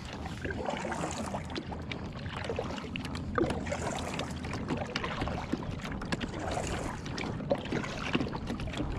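Water lapping and splashing against a plastic kayak hull as the kayak moves across the water, with scattered small knocks and clicks and some wind on the microphone.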